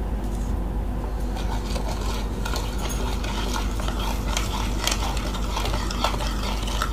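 Wire whisk stirring milk powder into milk and ghee in a bowl, with frequent light clinks and scrapes of the wires against the bowl, over a steady low hum.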